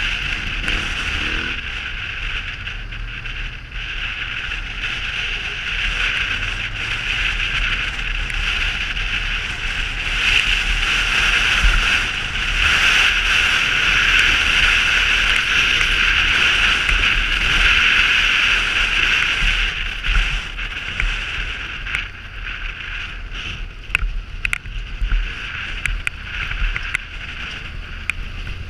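Polaris Sportsman 850 ATV running steadily along a dirt trail, engine rumble under heavy wind noise on the microphone, louder for a stretch in the middle. A few sharp ticks near the end.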